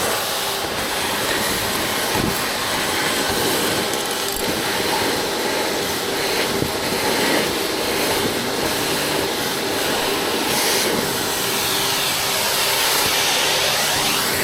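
Gutter vacuum running steadily, its motor and suction rushing through the pole hose, with a few light knocks as the nozzle works in the gutter.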